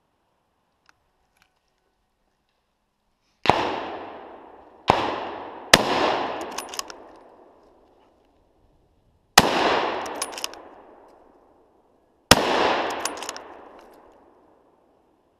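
Five rifle shots from a scoped hunting rifle, each followed by a long echo rolling through the forest. The first comes about three and a half seconds in, the next two close together about a second and a half later, and the last two about three seconds apart.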